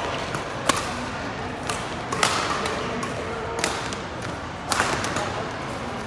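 Badminton rally: sharp racket strikes on the shuttlecock, about one a second, with a quick pair of hits near the end.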